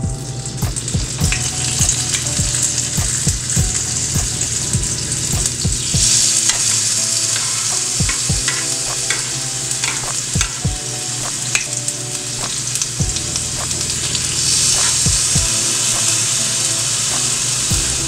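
Marinated chicken breasts sizzling on a hot cast-iron grill pan as pieces are laid on with tongs. The sizzle swells about six seconds in and again near the end as more pieces go down.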